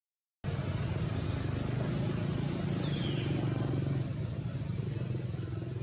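Steady low drone of a motor vehicle engine running, cutting in after a split second of dead silence.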